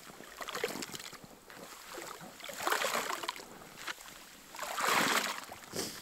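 A long pole sloshing and churning water, slush and broken ice in a hole cut through the ice, with small knocks and scraping. The splashing swells up twice, more strongly about three seconds in and again around five seconds.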